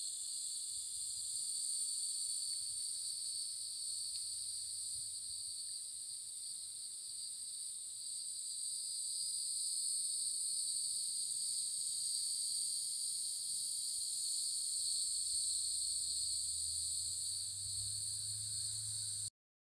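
Steady, shrill chorus of insects singing in summer woodland, a continuous high-pitched drone that holds without a break until it cuts out just before the end.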